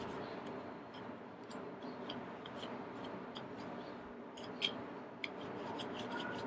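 Microfiber cloth rubbing over a plastic AirPods Pro charging case to dry it: a faint, steady rub with many small scattered clicks, two sharper ticks a little past halfway.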